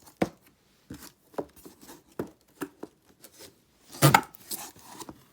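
Cardboard box and paper packaging being handled: scattered short taps and rustles, with one louder burst of handling noise about four seconds in.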